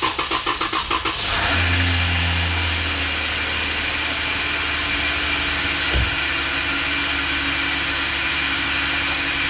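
Freshly installed used 3.6 Pentastar V6 cranking on the starter for about a second, then catching and settling into a steady idle with no ticking or knocking. A steady hiss runs with it: a vacuum leak from a PCV hose left off.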